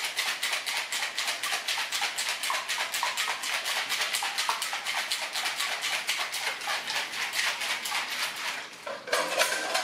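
Ice rattling hard inside a metal cocktail shaker being shaken fast, many strokes a second in an even rhythm, while a pumpkin ginger cocktail is mixed.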